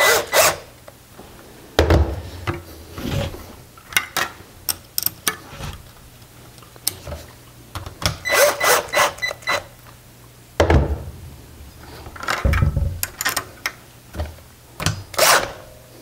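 A cordless drill running in several short bursts as it drives the rear sprocket's mounting bolts home, with clicks, rattles and scrapes of the bicycle wheel and sprocket being handled between bursts.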